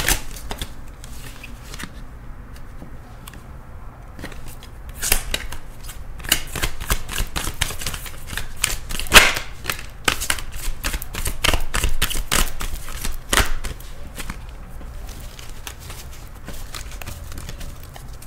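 A deck of Abraham-Hicks oracle cards being shuffled hand to hand: runs of quick card clicks, densest through the middle, with quieter spells near the start and the end.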